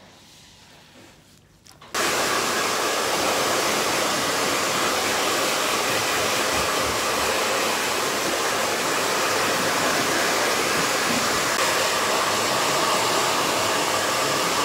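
Hair dryer switched on about two seconds in, then running steadily with a loud, even rushing blow.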